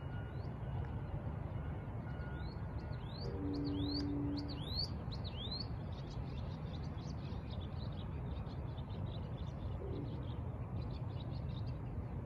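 Small birds chirping, with a run of quick rising chirps a few seconds in and lighter twittering afterwards, over a steady low rumble. A faint distant train horn chord sounds twice, a long blast about three seconds in and a short one around ten seconds.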